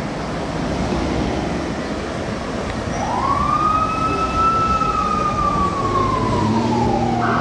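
A siren rises about three seconds in, holds high, then falls slowly in one long wail. Near the end it switches abruptly to a steady higher tone. Cars passing on the road make a constant rumble underneath.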